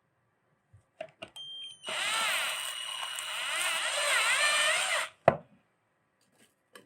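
Electric meat grinder clicking on and whining briefly, then running loudly for about three seconds with its motor pitch wavering under load as it grinds. It stops abruptly and is followed by a sharp knock.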